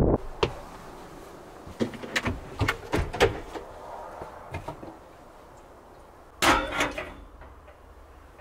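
A run of sharp knocks and clicks, then a louder clattering knock about six and a half seconds in.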